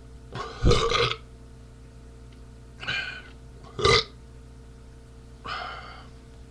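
A man burping four times in a row after drinking beer. The first and third burps are the loudest, and the last, near the end, is the faintest.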